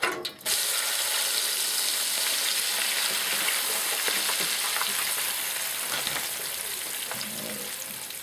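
French fries going into deep-fryer oil heated to about 350°F, setting off a loud, steady sizzle. The sizzle starts suddenly about half a second in and slowly eases.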